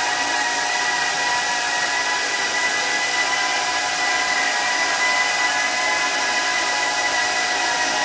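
Intermac Master 1500 stone CNC router running: a steady high whine over an even hiss that holds at one level throughout.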